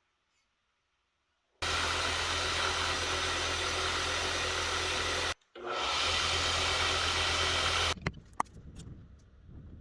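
An electric power tool runs steadily with a low motor hum. It stops briefly about halfway, spins back up and cuts off, followed by a few light knocks and clicks.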